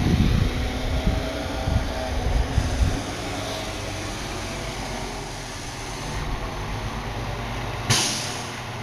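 Loaded tri-axle dump truck's diesel engine running as it backs up a driveway. Heavy low rumbling in the first three seconds settles into a steady hum, and a sudden burst of hiss comes about eight seconds in.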